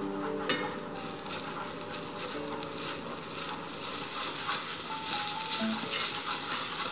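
Minced meat sizzling as it fries in a saucepan, stirred and scraped with wooden chopsticks, with one sharp knock about half a second in. The sizzle grows a little louder in the second half.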